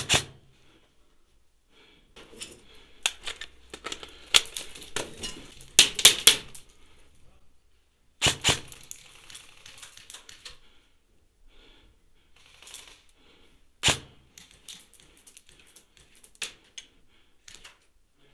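Ares Amoeba 009 electric airsoft rifle firing, its gearbox and piston giving sharp mechanical clacks: a shot at the start, a quick cluster of them around the middle, two close together, then one more. Lighter clicking and rustle fill the gaps between.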